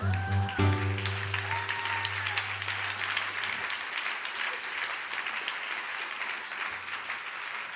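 Audience applauding, with the last chord of an acoustic guitar ringing underneath and fading out about three and a half seconds in.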